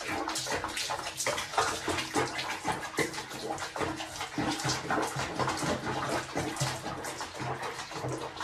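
Water sloshing and splashing in a small basin around a cat sitting in bath water, a quick run of irregular splashes.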